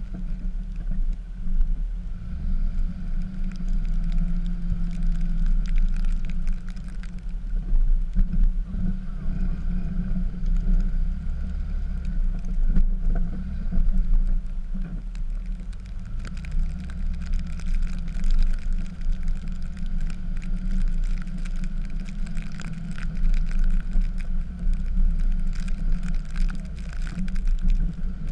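Dodge pickup's Cummins diesel engine running steadily, its level rising and falling as the truck works.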